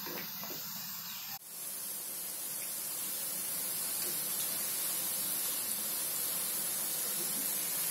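Medu vada deep-frying in hot oil in a steel kadhai: a steady sizzling hiss. A brief drop comes about a second and a half in, after which the sizzle is louder and brighter.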